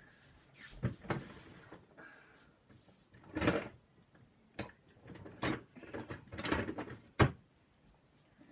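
Off-microphone handling noise of objects being rummaged through: about half a dozen irregular knocks and clatters, the sharpest near the end.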